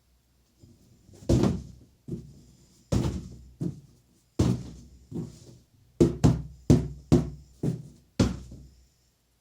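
Designed fireworks burst sound effects: about a dozen sharp, deep booms, each dying away over about half a second, coming closer together in the second half.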